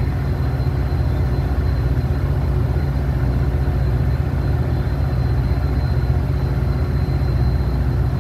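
Steady low rumble of a freight train running on the station tracks, with a faint thin high whine above it.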